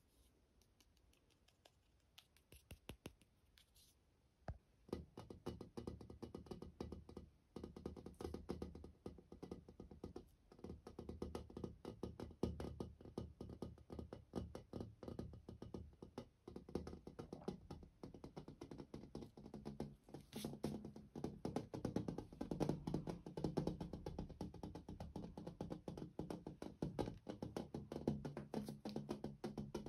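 Fingernails tapping rapidly on a mirror's glass close to the microphone. A few sparse taps come first, then a fast, dense run of taps from about five seconds in.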